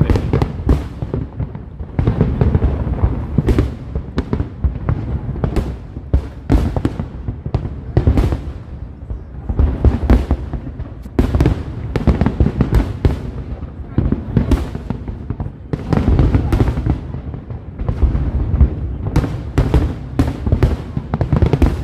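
Fireworks display: a dense run of sharp bangs and crackles, several a second, over a constant deep rumble of shells bursting.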